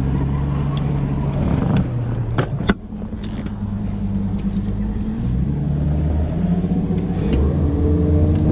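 Bass boat outboard motor running, with a few sharp clicks about two seconds in, then the engine note rising in steps from about five seconds in as it speeds up.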